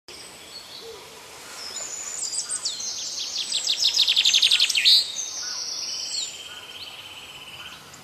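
Small songbirds singing: high chirps that run into a fast trill in the middle, then a dry buzzing trill that stops near the end.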